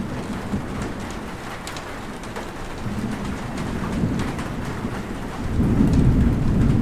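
Steady rain with scattered single drops, and a low rumble of thunder that builds from about halfway and grows loud near the end.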